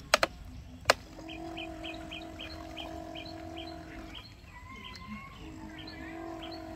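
A Huina RC toy excavator's electric motors whine steadily as the arm and bucket work, stop for about a second past the middle, then start again. A few sharp plastic knocks fall in the first second. Over the whine a bird chirps in a quick, even series.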